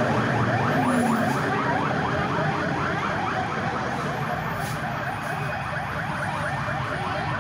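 Emergency vehicle siren in a fast yelp: short rising sweeps repeating about five times a second, steady throughout.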